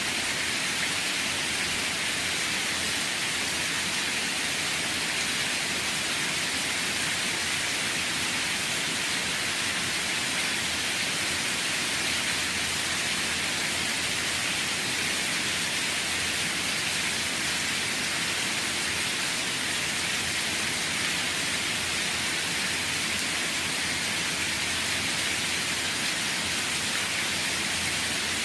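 Steady rain falling, a continuous even hiss with no distinct drops or thunder.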